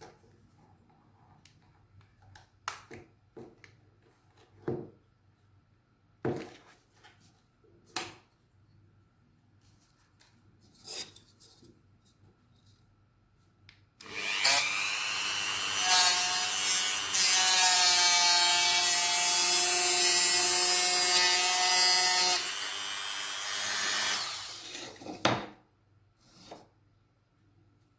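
A few separate knocks and clicks, then about halfway through a small high-speed power tool motor spins up and runs for about ten seconds. It gives a steady whine over loud noise, drops in level and stops, and is followed by one more knock.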